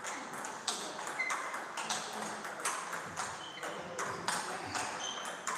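Table tennis rally: the ball clicking sharply off bats and table in quick alternation, about two hits a second, some leaving a short ringing ping.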